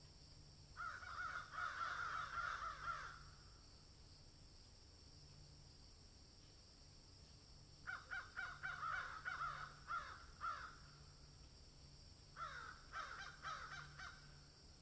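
Crows cawing in three bursts of rapid, harsh calls: about a second in, around eight seconds in, and again near the end. A steady high hiss runs beneath.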